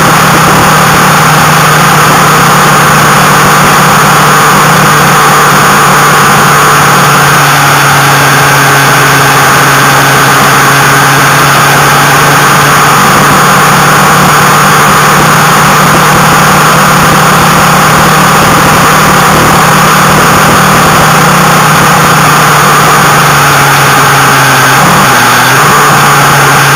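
Motorcycle engine running at a steady cruise under heavy wind rush on the microphone. The engine note drops about three seconds before the end.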